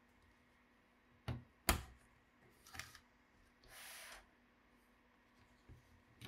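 Small hard parts being handled during a laptop teardown: two sharp clicks, a short scrape, then a scraping noise lasting about half a second, and a few light ticks near the end.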